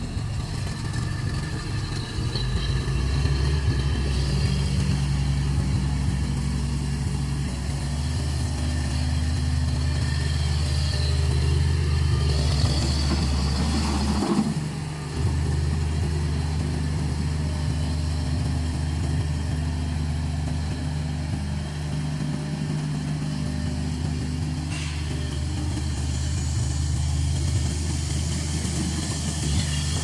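Stand-on mini track loader's engine running steadily as the machine drives on its tracks. The engine note steps up about two seconds in, dips briefly about halfway through, then picks up again.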